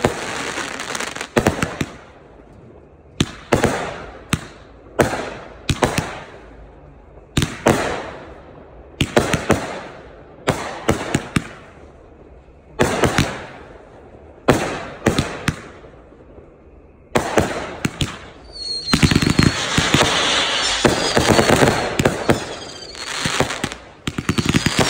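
Consumer aerial fireworks going off: a string of sharp bangs, irregularly one or two a second, each with a crackling tail. About two-thirds of the way through they give way to a dense barrage of rapid bangs and crackling.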